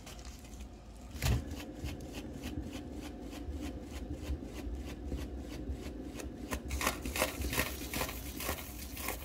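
Painting turntable spinning fast, clicking steadily about three times a second, after a single knock about a second in as it is pushed into the spin.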